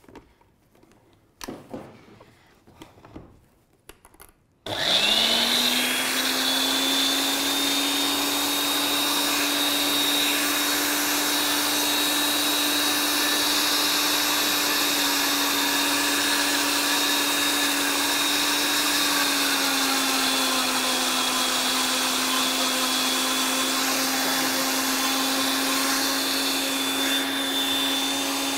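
Countertop blender blending soaked cashews, lemon juice and tahini into a thick hummus. After a few light knocks the motor starts abruptly about five seconds in, winds up quickly and runs steadily with a high whine over its hum. Its pitch dips slightly about two-thirds of the way through.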